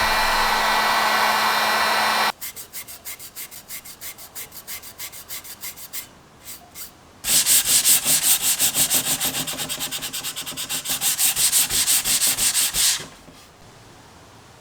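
A heat gun blowing steadily, cutting off about two seconds in. Then hardened teak wood filler being sanded flat by hand in quick back-and-forth strokes, about five a second: light at first, much louder from about halfway, stopping near the end.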